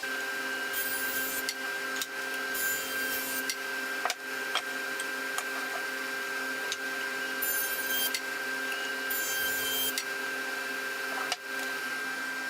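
A small electric motor running at a steady speed, switched on at the start and cut off near the end, with scattered clicks and a few short bursts of hiss, typical of a shop power tool at work.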